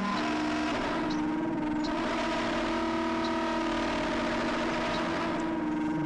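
Improvised drone music on battery-powered electronic instruments: several sustained tones layered together, with held notes stepping to new pitches every second or two and a lower note entering near the end.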